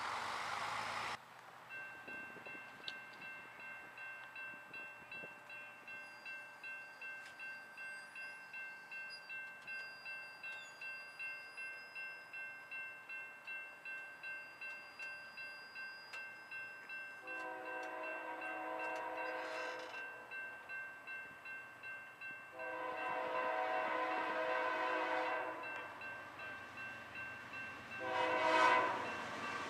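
A railroad crossing bell rings about twice a second while an approaching locomotive sounds its air horn in the grade-crossing pattern: two long blasts, a short one, and the start of a final long one near the end. In the first second a car passes over a crossing.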